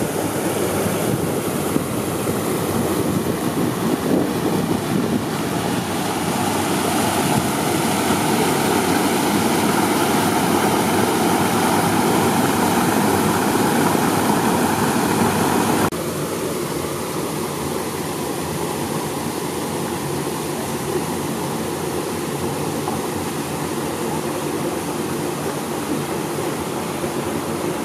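Steady rush of flowing river water spilling over a small weir. About halfway through it cuts suddenly to a quieter steady rush.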